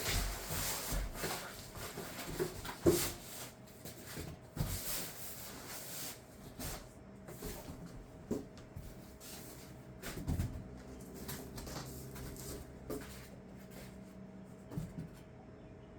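Irregular knocks, clatter and rubbing of things being handled and put away, with a sharp knock about three seconds in.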